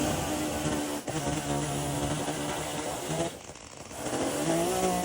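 Chainsaw running at speed, cutting out the middle of a mortise in a timber. The engine drops off briefly a little past three seconds in, then comes back up.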